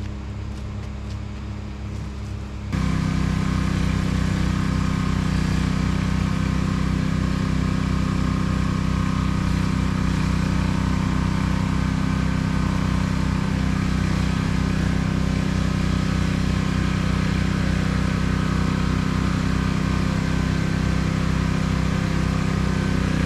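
Engine running steadily, stepping up abruptly to a louder, higher throttle about three seconds in and holding there.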